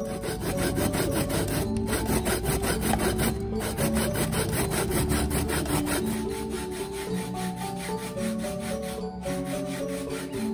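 Coconut flesh being grated by hand on a stainless-steel box grater: quick, even rasping strokes, several a second. Light background music with mallet-like notes plays underneath.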